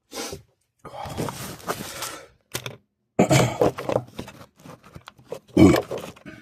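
A person making wordless vocal sounds: a short burst, then a long breathy noise, then two loud, low voiced grunts.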